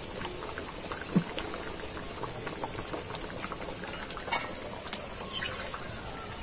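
Thin chicken curry with potatoes bubbling at a boil in a steel kadai over a wood fire, with many small pops. A low knock comes about a second in and a few sharp clicks later on.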